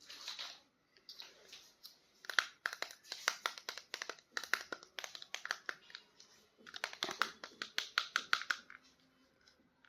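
Plastic toy packaging crinkling and clicking as it is handled during unboxing, in two rapid runs of sharp crackles of a few seconds each, with a pause between them.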